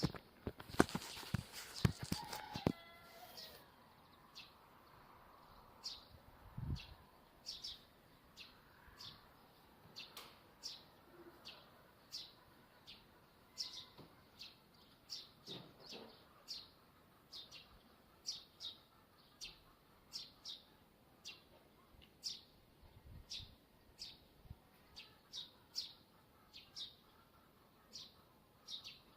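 A TV antenna's guy wire squeaking in the wind: a long run of short, high-pitched squeaks, about one or two a second, each much like the last. A few loud knocks come in the first three seconds.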